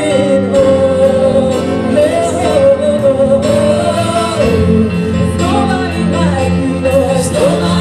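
Live gospel worship singing: a group of women's voices singing a slow, sustained melody through microphones, over a keyboard and acoustic guitar accompaniment with steady held bass notes.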